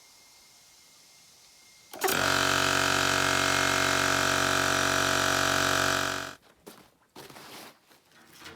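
A small motor starts abruptly about two seconds in, runs steadily at one pitch for about four seconds, then winds down quickly, followed by a few light clicks and rustling.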